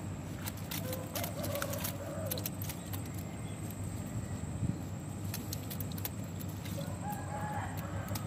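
A rooster crowing in the distance twice: once about a second in and again near the end, each a held call that rises slightly. Scattered sharp clicks and a steady low hum sit underneath.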